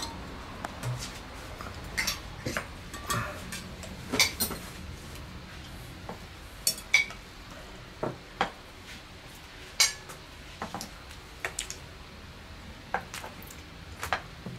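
Knife and fork clinking and scraping on a porcelain plate while eating, in irregular separate clinks, some with a short bright ring.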